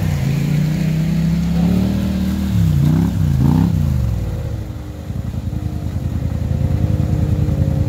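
ATV engine working through a deep mud hole, revved up and down twice about three seconds in, then pulling steadily with the revs slowly climbing.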